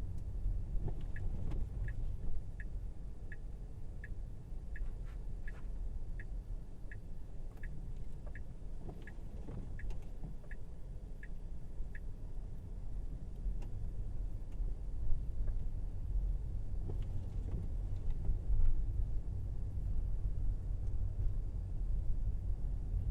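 Steady low tyre and road rumble inside the cabin of a Tesla Model Y. For the first ten seconds or so, a turn-signal indicator ticks evenly, about one and a half ticks a second, then stops.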